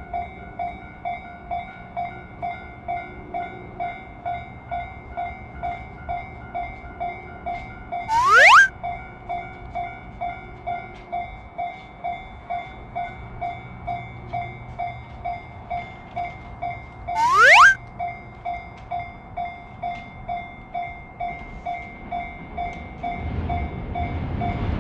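Japanese railroad crossing's electronic warning bell ringing steadily at about two dings a second. A loud, short rising whoop cuts in three times, about nine seconds apart. A train's rumble builds near the end.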